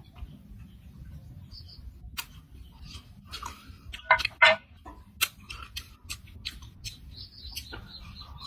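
Cooked crab shells cracking and crunching as crabs are picked apart and eaten by hand, heard as irregular sharp clicks and snaps, the loudest a quick cluster about four seconds in. A faint high chirp comes in near the end.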